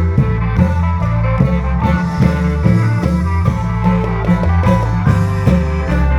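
Isan folk music from a klong yao long-drum troupe: an amplified melody over a heavy bass line and a steady drum beat.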